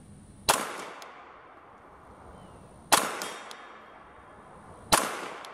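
Three 9mm pistol shots from a 4-inch Walther PPQ M2, slow aimed fire at a long-range steel target: about half a second in, then about two and a half seconds later, then two seconds after that. Each shot is a sharp crack followed by a short echo that dies away.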